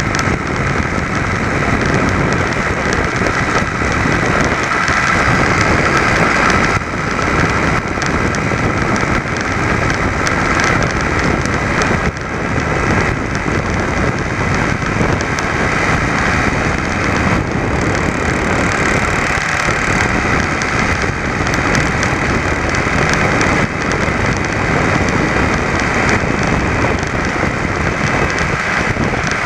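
Small single-cylinder two-stroke clip-on engine of an ABG (Velo) VAP moped running steadily at cruising speed, heard close up with wind rushing over the microphone.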